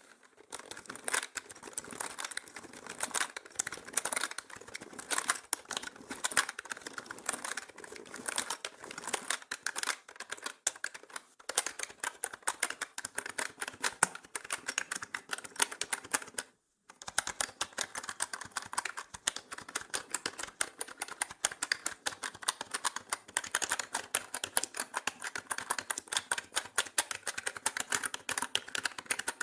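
Fast, continuous typing on a mechanical keyboard: a dense stream of sharp key clicks. It stops briefly a little past halfway, then resumes.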